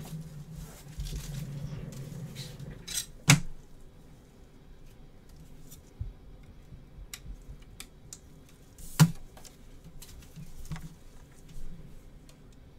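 Rigid plastic card holders being handled, with two sharp clacks about six seconds apart and lighter clicks and taps between.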